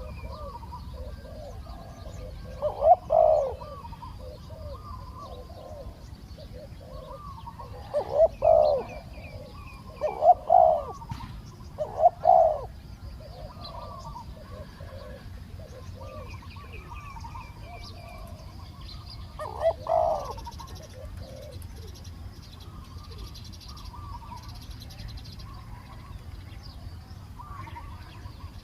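Spotted doves cooing back and forth: a close bird gives loud coo phrases about 3, 8, 10, 12 and 20 seconds in, with fainter coos between them. Small birds chirp high in the background.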